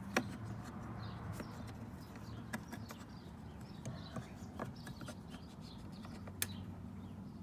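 A few scattered sharp clicks and light knocks of metal door parts and hand tools being handled, over a steady low hum.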